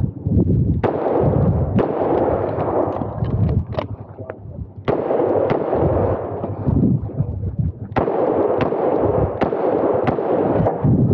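Smith & Wesson 625 revolver fired shot after shot, roughly a second apart in short strings with brief lulls between them. Each report is sharp and followed by an echoing tail.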